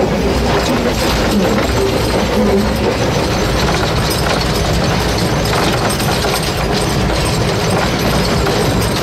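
Steady running noise of the 1877 2-4-0 side-tank steam locomotive L 509 on the move, heard from its footplate: a continuous, even rumble of wheels on rail.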